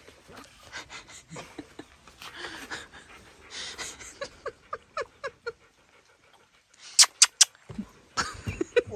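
A Rottweiler panting in repeated breathy puffs, with a run of short squeaky sounds about halfway through and three sharp, loud clicks near the end.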